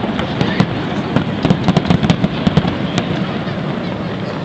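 Fireworks barrage: many shells bursting at once in a dense run of bangs and crackles over a low rumble, thinning out after about three seconds.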